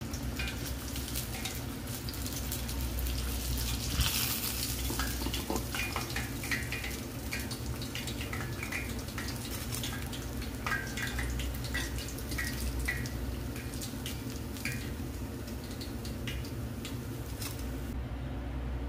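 Panko-breaded cutlet deep-frying in hot oil in a small tempura pot: dense crackling and spitting of the oil, fading out near the end.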